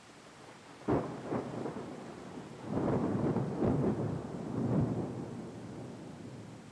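Thunder: a sharp crack about a second in, followed by a rolling rumble that swells a couple of seconds later and slowly fades.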